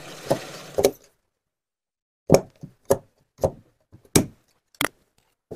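Large steel tailor's shears cutting through cotton fabric, their blades snipping shut in a run of separate sharp snips, roughly one every half-second to second, after a short pause.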